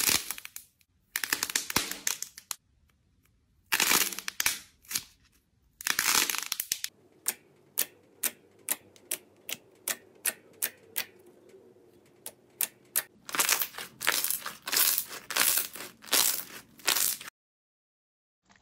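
Hands squeezing a squishy toy and pressing fingers into thick slime: several loud bursts of squishing, then a run of short sharp pops, about two or three a second, as fingers poke into the slime.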